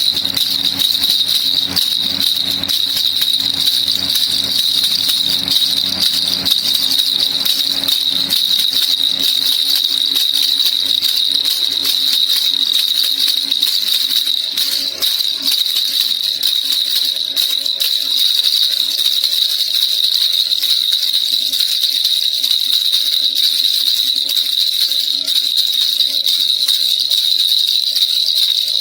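Baby rattle (kilukiluppai) shaken without a break, a dense, steady jingling rattle of many tiny ticks.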